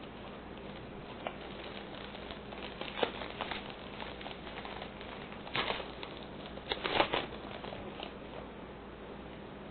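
Trading cards being handled: soft rustles and sharp clicks as cards are slid and flipped, with the loudest handling about three seconds in and again around six to seven seconds in.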